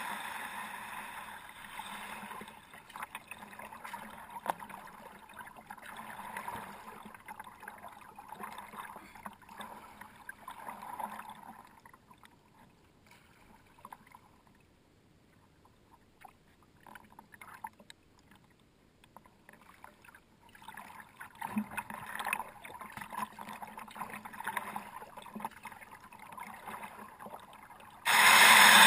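Kayak out on the water: paddle splashes with scattered light knocks and scrapes, going almost silent for several seconds midway. A sudden loud, steady rush of noise starts near the end.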